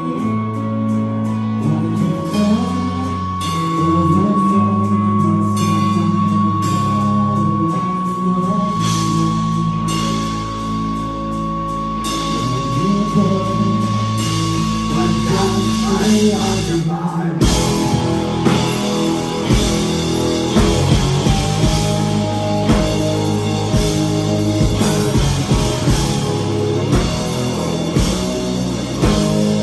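Live rock band playing: long held guitar and keyboard chords with a steady high note over them, then a little past halfway the drums come in and the full band plays to a steady beat.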